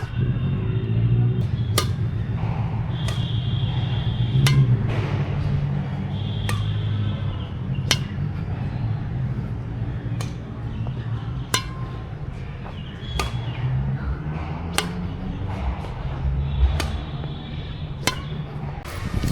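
Badminton rackets striking a shuttlecock in a rally: sharp smacks about every one to one and a half seconds, over background music.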